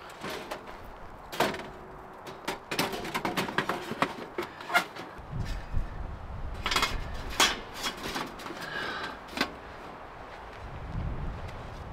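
Irregular clicks, knocks and clatters of camp gear being handled and set up, with low gusts of wind on the microphone.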